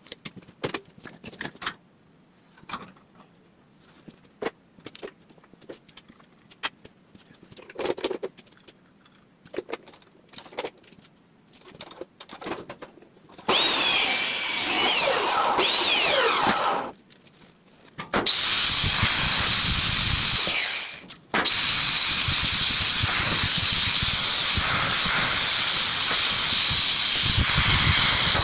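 Quick light taps and clicks, then about halfway through an angle grinder on steel for about three seconds, stopping, and starting again for the rest with one short break, sped up with the time-lapse.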